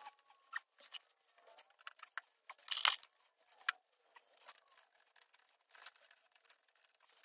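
Hands handling a stripped metal equipment chassis and its fan units: scattered light clicks and rustles, with a short louder rustle about three seconds in and a sharp click just after it.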